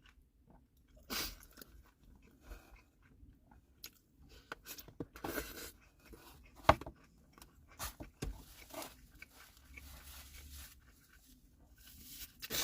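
Chewing and crunching while eating a fish taco, with scattered small crackles and clicks; one sharp click stands out about seven seconds in.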